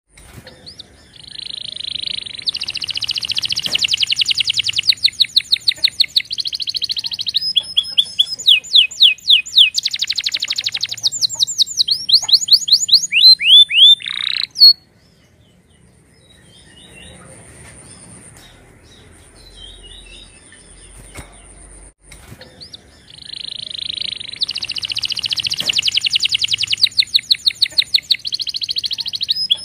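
Domestic canary singing: fast rolling trills of rapidly repeated notes, then slower series of sweeping notes, breaking off about halfway through into a quieter stretch of soft chirps before the trills start again.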